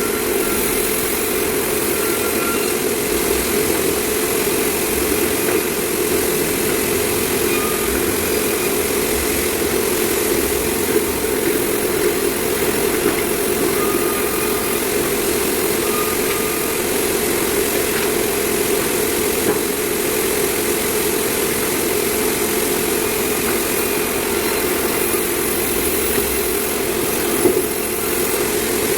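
Sawmill machinery running with a steady, even mechanical drone.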